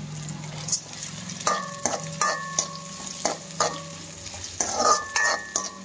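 Chopped onion and chana dal sizzling in oil in a metal kadai, stirred with a steel spoon. From about a second and a half in, the spoon knocks and scrapes against the pan several times, each knock ringing briefly.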